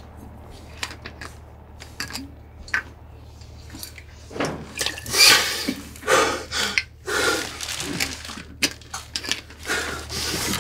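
Scattered small clicks and knocks of objects being handled, then from about four seconds in a run of louder rustling and scraping noises, over a low steady hum.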